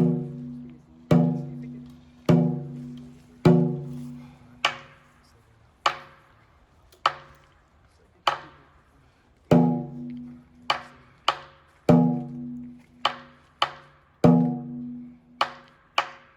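A percussion instrument struck in a steady rhythm, about one stroke every second at first and with quicker extra strokes added later. Many strokes ring on with a low note that dies away; others are short and sharper.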